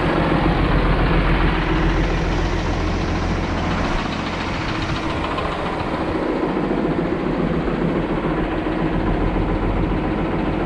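John Deere 710D backhoe's diesel engine running steadily, with no sharp knocks.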